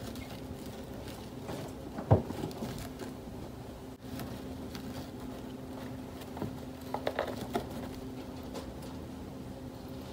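A pet rat scrabbling and tapping as it moves over artificial turf and pushes into a cardboard box: light rustles and taps, one sharper knock about two seconds in and a quick cluster of taps around seven seconds, over a steady low hum.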